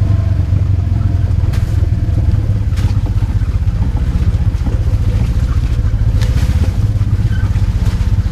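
Polaris RZR side-by-side engine running steadily as the vehicle drives along a rutted dirt trail, with a few light knocks or rattles over the rough ground.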